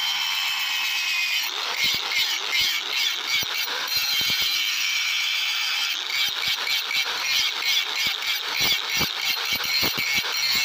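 Electric angle grinder's disc grinding the edge bevel of a forged steel billhook blade: a steady high whine, then from about a second and a half in a rough, uneven rasp as the disc bites into the steel.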